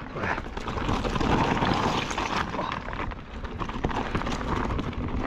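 Kellys Swag 50 mountain bike rolling fast down a rocky trail: knobby tyres crunching over loose stones and dirt, with an irregular clatter of the chain and bike over the rocks and wind noise on the camera.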